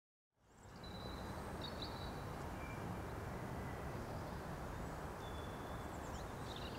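Outdoor ambience: a steady low rumble and hiss with a few faint bird chirps scattered through it, starting after a brief moment of dead silence.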